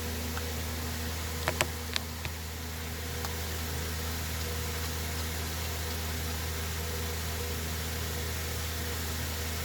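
A steady low hum, with a few sharp clicks about one and a half to two and a half seconds in, as tools and parts of the dismantled chainsaw are handled while the spark plug is fitted.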